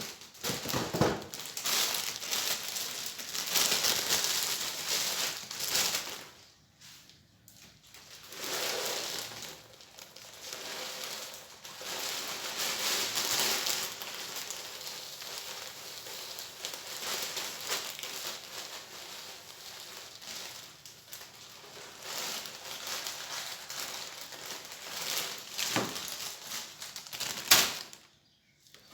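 Rice Krispies being refilled into a container: the dry cereal pattering and the bag crinkling, in irregular bursts with a couple of short pauses.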